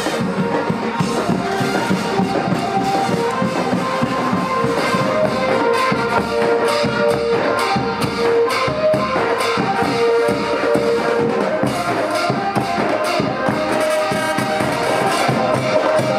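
Brass band playing a lively melody on horns over a steady beat of drums and percussion.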